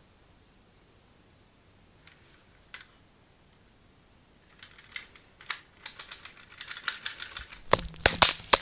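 Scattered sharp clicks and taps, sparse at first, then coming faster and louder, with a few heavy knocks near the end.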